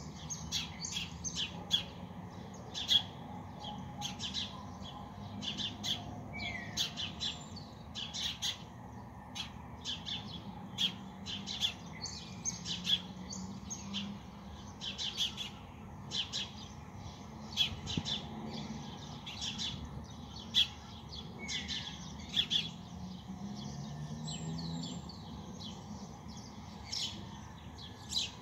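Small birds chirping in a dawn chorus: many short, sharp chirps, several a second, over a low steady hum.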